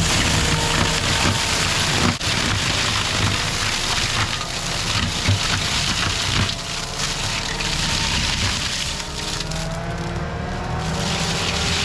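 Gyrotrac forestry mulching head on a CAT skid steer grinding through brush and wood, a continuous dense crushing and splintering over the machine's steady engine rumble, with a sharp knock about two seconds in and engine and hydraulic pitch drifting as it works.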